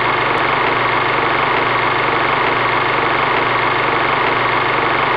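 Film projector running sound effect: a steady mechanical whir, with a single click about half a second in.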